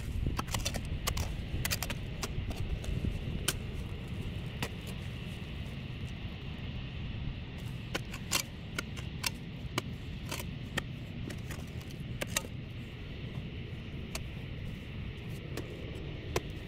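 A pick and rock hammer striking and prying at loose, crumbly rock, with stone fragments clinking and clattering in irregular sharp clicks over a steady low rumble.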